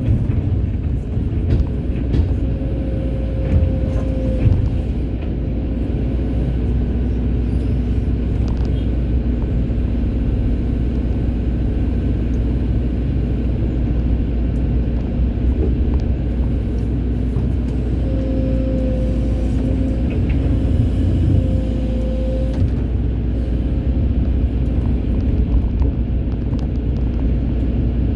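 Excavator diesel engine running steadily under load with a low rumble, and a hydraulic whine that comes in twice for a few seconds as the machine works.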